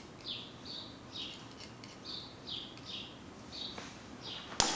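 A bird chirping over and over, short downward-sliding chirps about two a second, with a single sharp click near the end.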